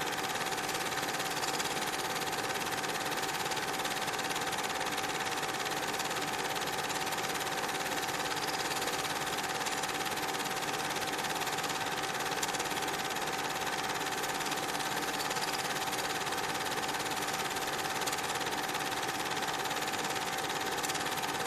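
A steady mechanical whirr with a constant high hum, unchanging and with no breaks.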